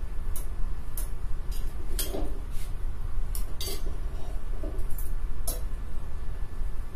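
Metal tongs clicking and clinking against a tawa and gas-burner grate in about a dozen irregular sharp ticks, while a bajra roti is turned and lifted onto the open flame, over a steady low rumble.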